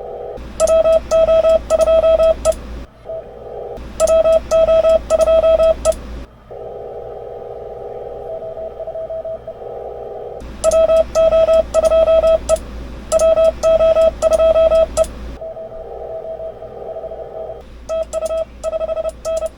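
Morse code keyed on a ham radio transceiver: four runs of loud, rapid on-off beeps at one pitch, the sidetone of the operator's own CW calls. Between them the receiver plays a narrow band of static and faint signals.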